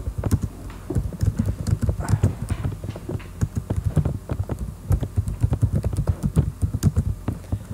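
Typing on a computer keyboard: a quick, irregular run of key clacks.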